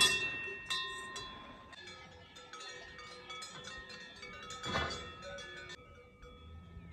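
Several cowbells clanking and ringing at once, each at its own pitch. There is a loud clang right at the start and another about five seconds in, and the ringing dies away soon after.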